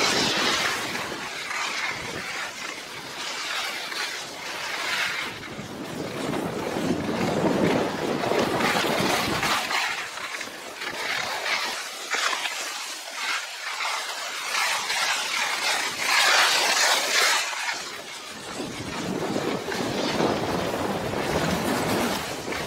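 Wind rushing over the microphone while skiing downhill, with the hiss of skis on snow; the rush swells and eases in waves.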